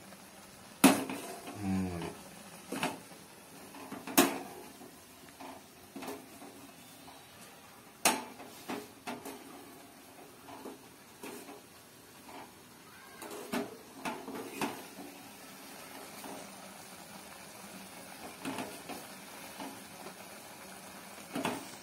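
Steel spoon stirring instant noodles in an aluminium pot, clinking and scraping against the pot's sides, with a few louder clanks scattered through.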